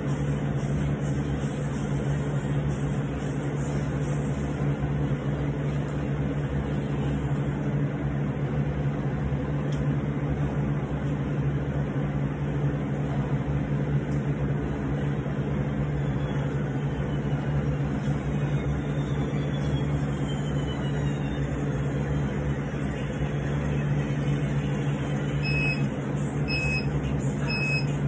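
A steady low hum with several even pitches runs throughout. Near the end, an interval timer gives three short high beeps about a second apart, counting down to the start of the next 30-second work interval.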